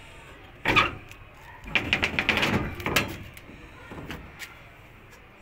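Metal door being handled and opened: a knock a little under a second in, then a burst of rattling and clattering, and a few lighter clicks near the end.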